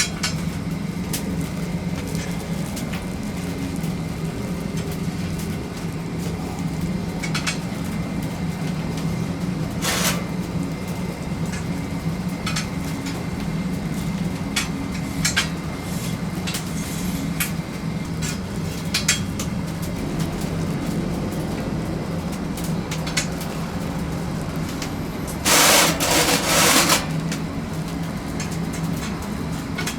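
A steady low machine hum with scattered clicks and knocks, and one harsh, noisy burst lasting about a second and a half near the end.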